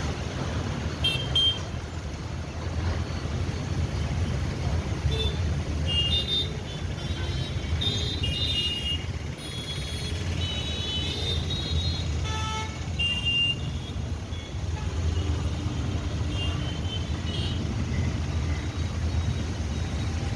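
Busy road traffic: a steady rumble of passing engines, with frequent short horn toots from different vehicles throughout.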